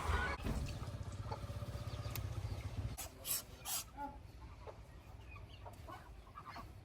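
Domestic fowl giving short, scattered calls. There is a low rumble for the first three seconds and a few sharp clicks just after the three-second mark.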